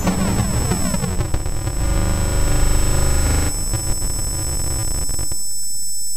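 Harsh, noisy electronic music score, synthesized. A falling pitch sweep runs through it at the start. About three and a half seconds in the texture changes, and near the end it settles into a steady electronic buzz with high whistling tones.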